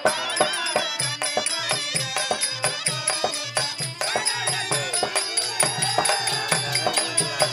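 Therukoothu folk-theatre accompaniment: a hand drum beating a fast, driving rhythm, with small cymbals ticking on the beat and a wavering melody line above.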